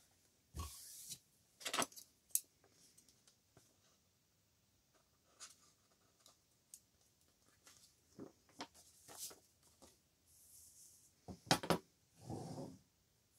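Quiet paper handling and scissor work: scattered snips and clicks of metal scissors trimming the edge of a sewn paper notebook, with brief paper rustles. Near the end there is a sharper clack as the scissors are set down on the wooden table, then a short brush of paper as the notebook is laid flat.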